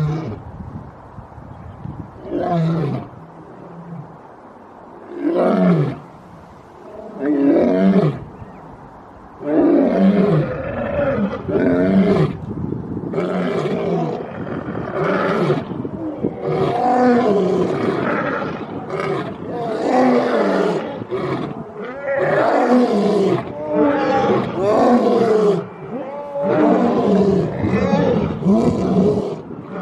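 Lion roaring: a few separate roars at first, then calls following one another almost without pause from about ten seconds in.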